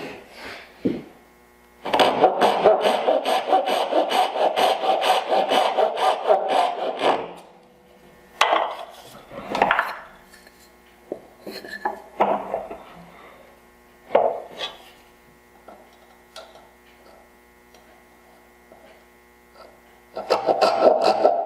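Hand saw cutting dovetails in a wooden board, with a steady run of back-and-forth saw strokes for about five seconds. A few short scrapes follow, and the sawing starts again near the end.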